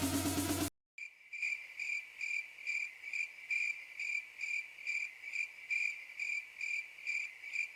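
Electronic background music cuts off abruptly under a second in, then a cricket chirps steadily, about two to three even chirps a second.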